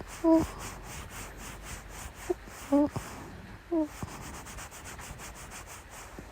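Fabric rubbing rhythmically against the microphone, a steady back-and-forth scratchy hiss like stroking a pillow or blanket. Three brief soft hums or murmurs from a voice cut in, the loudest sounds here.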